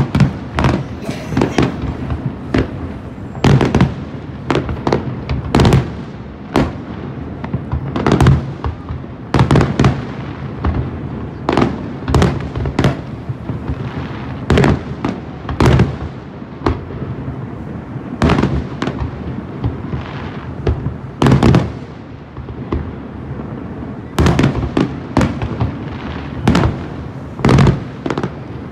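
Fireworks going off continuously: a rapid series of sharp bangs, about one or two a second, over a steady crackle and rumble.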